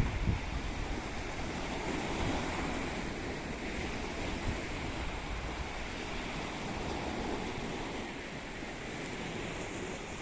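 Rough sea surf washing and breaking in a steady roar of noise, with wind on the microphone, buffeting it at the start.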